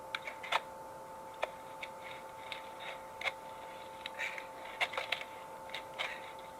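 Scattered, irregular clicks and taps of a cardboard package being handled and opened, over a faint steady hum of two tones.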